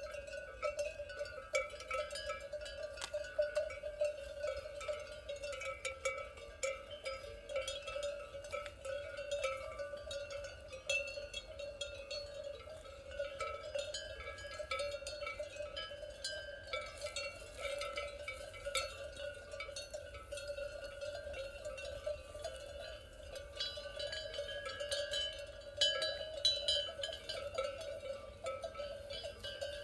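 Cowbells clanking continuously, many bells sounding together in an overlapping jangle: a steady ring around one pitch with frequent small clanks over it.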